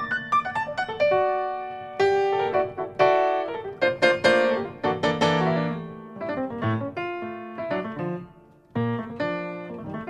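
Jazz piano background music: chords and melody notes, with a short pause near the end before the playing picks up again.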